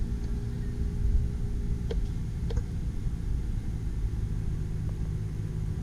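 Steady low rumble of the city at night, with a steady machine hum under it and two faint clicks about two seconds in.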